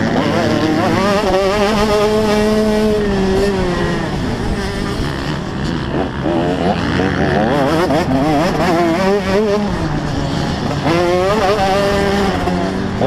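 Motocross bike engine heard close up from on board, revving hard and falling back repeatedly. Its pitch climbs, holds high for a couple of seconds, drops away, then sweeps up several more times.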